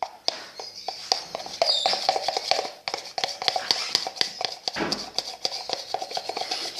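Fluffy slime being squeezed and worked by hand, crackling with many quick, irregular small pops and clicks.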